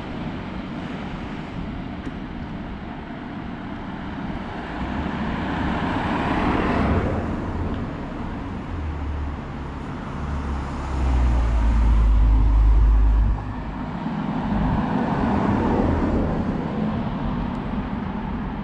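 Cars passing on a street, the nearest swelling up and fading about six to seven seconds in and another a little after the middle. A loud low rumble runs for about two seconds just past the middle and cuts off suddenly.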